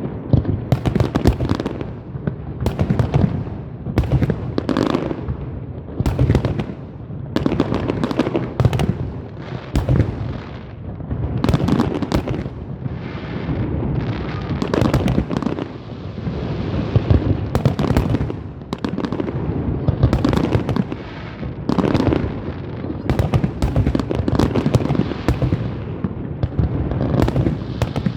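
Fireworks going off in rapid succession: a steady stream of sharp bangs and booms, with a longer stretch of crackling around the middle.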